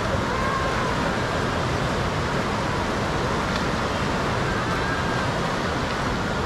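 Fast, turbulent river rushing past, a steady, even wash of water noise.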